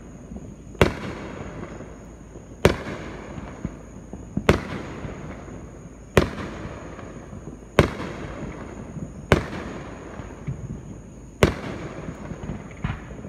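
Aerial fireworks shells bursting: seven loud bangs about every one and a half to two seconds, each trailing off in an echo, with a few fainter pops in between.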